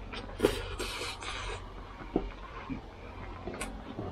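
Close-up eating sounds of a man eating pork-belly sinigang with rice by hand: a noisy slurp at his mouth from about half a second in, lasting about a second, then chewing and a few light clicks as his fingers work the rice.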